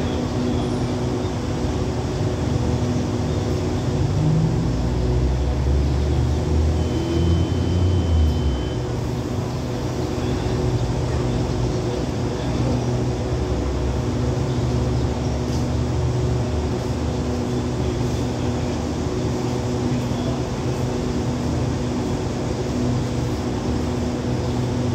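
A standing diesel passenger train idling: a steady engine and generator hum with a low rumble. The rumble swells louder for several seconds about a quarter of the way in.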